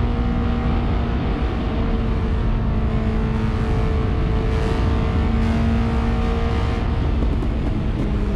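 TVS Apache RR 310's single-cylinder engine running at a steady road speed, its note holding nearly level, under heavy wind and road rush.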